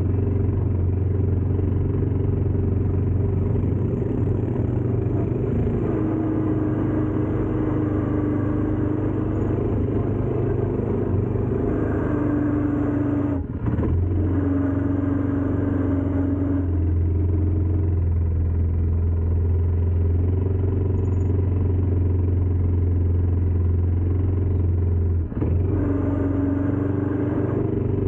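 ATV engine running steadily under way, a low drone with a shifting pitch above it, briefly dropping off twice.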